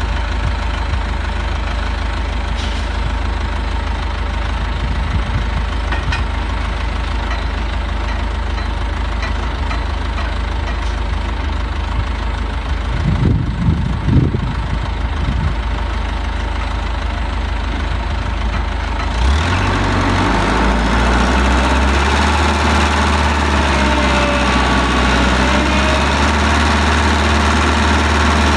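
Excavator engine running steadily, with a few brief rises in level about halfway through; about two-thirds in the engine sound becomes louder and fuller.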